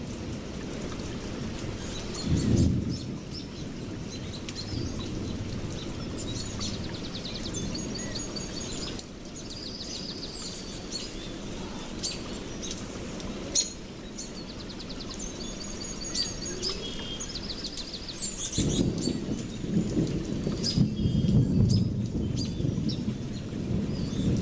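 Small birds chirping and trilling in quick short phrases over a steady low rushing noise. The sound cuts abruptly at about 9 and 14 seconds in, and the low noise grows louder in the last few seconds.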